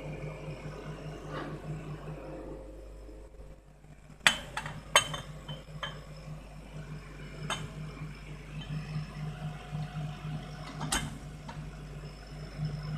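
Glass beer bottle knocking and clinking against the rotary attachment of a laser engraver as it is set in place: a handful of sharp clinks, the loudest about four and five seconds in, over a steady low machine hum.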